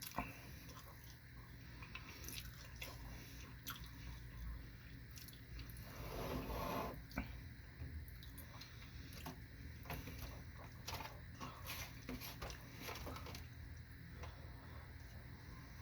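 A person chewing sushi rolls close to the microphone: soft wet mouth clicks and smacks, with a louder stretch about six seconds in.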